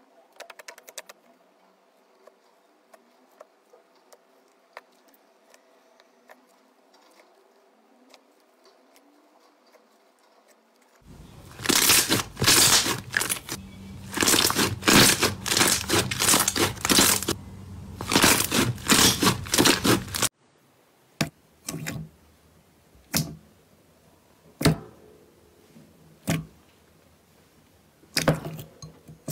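Hands squeezing and kneading slime, with a long run of dense crackling and popping. Before it is a quiet stretch of faint clicks; after it come only scattered single pops as fluffy slime is pressed.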